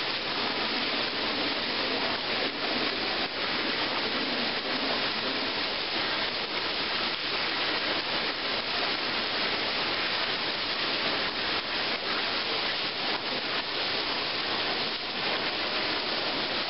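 Fountain water jets falling and splashing into the basin: a steady, even hiss of water.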